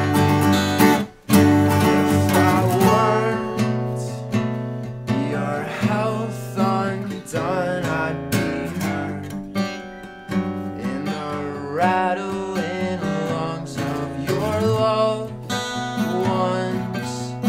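Two acoustic guitars playing an acoustic pop punk song, stopping short about a second in, then carrying on. A man sings over them from about three seconds in.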